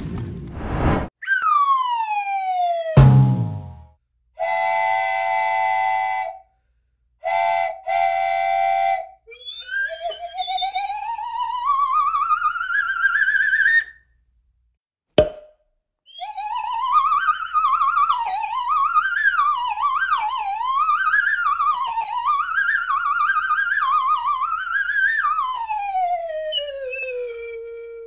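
A string of cartoon sound effects. First a falling whistle ending in a crash about three seconds in. Then one long and two short steady horn-like tones, a slow rising slide-whistle glide, a short blip, a long warbling whistle that wobbles up and down, and finally a long falling whistle.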